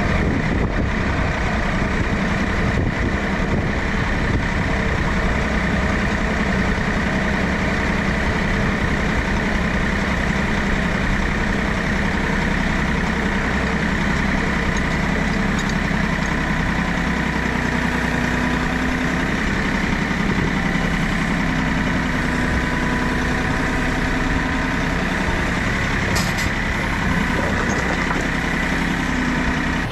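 Tractor engine running steadily at an even speed, driving a log splitter.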